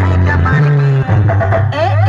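Loud dance music blaring from a big DJ rig made of a stacked array of horn loudspeakers, with a heavy held bass that briefly drops out about a second in.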